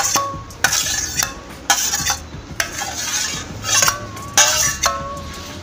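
Raw boneless chicken pieces being tipped from a glass bowl into a ceramic bowl of yogurt marinade, with a spatula knocking and scraping against the bowls. It comes as a run of irregular short clinks and scrapes, some with a brief ringing squeak.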